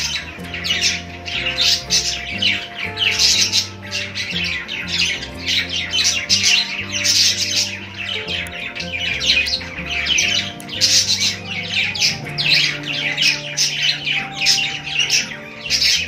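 A group of budgies (budgerigars) chattering and chirping without pause, a dense run of quick, sharp chirps and warbles. Soft background music with low held notes plays underneath.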